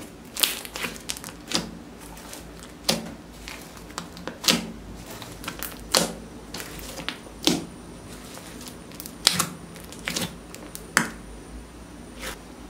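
Hands squishing and pressing a large mass of clear slime loaded with glitter, making irregular sharp, sticky pops and crackles about once a second.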